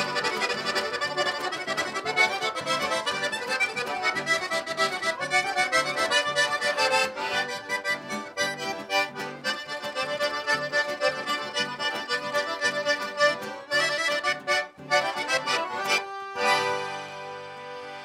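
Scandalli diatonic button accordion (the gaita ponto of Rio Grande do Sul) playing a fast, lively run of notes with a piano accordion backing it. About two seconds before the end the run stops on a held closing chord.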